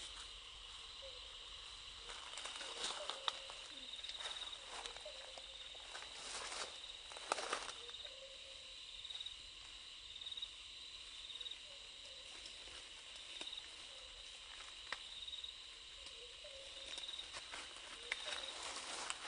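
Forest ambience: a steady high insect drone that pulses about once a second, with a faint short call repeating every second or two. Scattered crackles of dry leaf litter being disturbed, loudest a few seconds in and around the middle.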